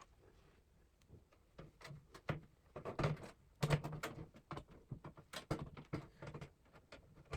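Scattered light clicks and knocks of a motherboard being handled and fitted into a PC case, coming in irregular runs.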